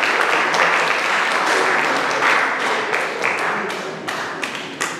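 Audience applauding in a theater hall, the clapping dense at first, then thinning and dying away over the last couple of seconds to a few scattered claps.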